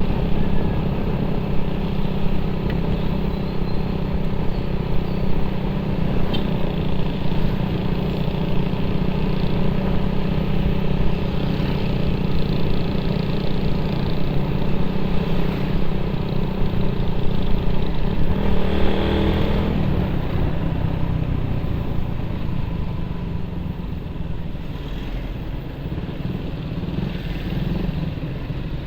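Suzuki Raider 150 carburetted single-cylinder four-stroke running steadily on the road through an open pipe exhaust. The engine note rises briefly about two-thirds of the way through, then eases off and quietens.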